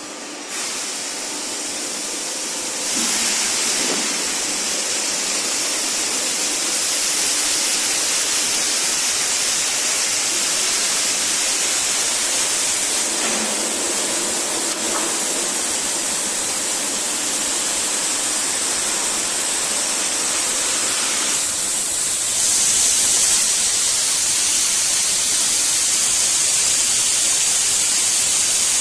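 Steady, loud hissing from a running cold chamber die casting machine, like spraying air or release agent. It gets louder about three seconds in and again about twenty-two seconds in.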